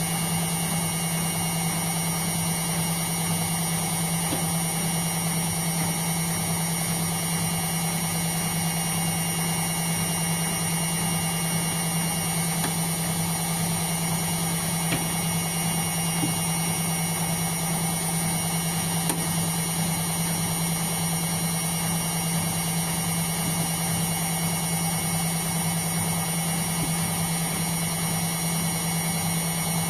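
Indesit washing machine running on a cotton programme, a steady mechanical hum with faint high tones above it, unchanging in pitch and level.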